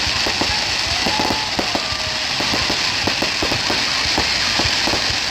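Fireworks crackling: a dense, irregular run of small pops and clicks over a steady hiss, with a faint falling whistle about a second in.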